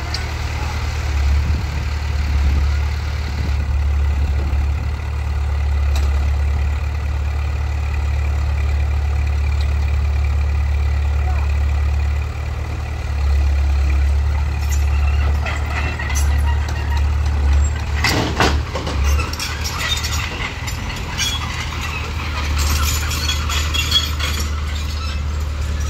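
Small crawler bulldozer's diesel engine running steadily, with irregular metallic clanks and squeals from about halfway through, loudest around three-quarters of the way in.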